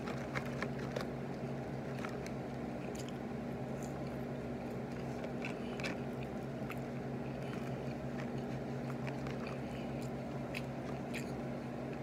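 Close-up chewing and biting of breaded chicken nuggets, with scattered short mouth clicks and crunches, over a steady low hum.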